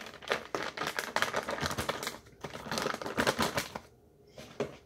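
Plastic bag crinkling and rustling as hands open it and reach inside, a quick run of crackles for about four seconds, then a few more near the end.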